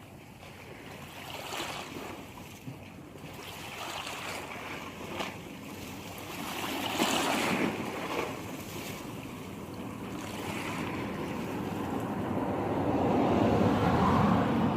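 Sea waves washing onto the shore in slow swells, with wind on the microphone; the surf grows louder toward the end.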